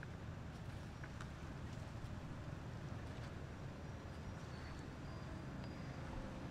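Steady low background rumble, like distant traffic or wind, with a few faint clicks and faint thin high whistles about halfway through.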